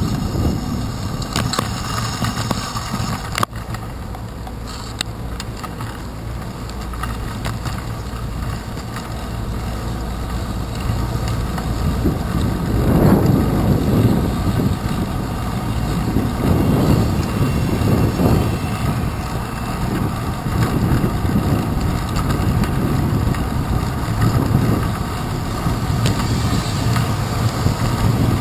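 Wind buffeting a handlebar-mounted GoPro Hero 2 on a moving bicycle, a steady rush with tyre hiss on the rain-wet path, swelling in gusts through the second half. A few light knocks near the start.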